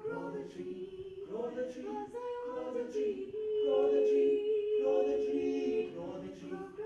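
A small group of voices singing a cappella in harmony, in short phrases, then one long, louder note held through the second half.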